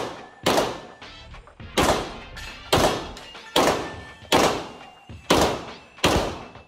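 A handgun firing a string of about eight shots at an uneven pace of roughly one a second. Each shot is a sharp crack followed by a ringing echo off the walls of an indoor range.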